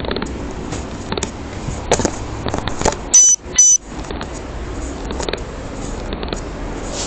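Two short, loud, high-pitched electronic beeps about half a second apart, heard about three seconds in over steady traffic noise.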